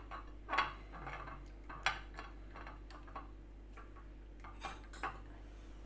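A metal spoon clinking and scraping against a dish, a handful of short, irregular taps.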